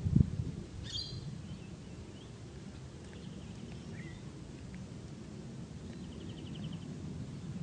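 Birds chirping and trilling in the background over a steady low rumble, with a thump right at the start. A rapid high trill comes near the end.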